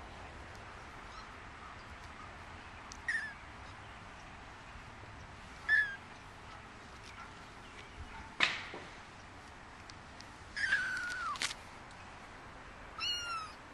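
Young kittens mewing: four high, thin mews that fall in pitch, the longest about ten and a half seconds in. There is a sharp click about eight seconds in.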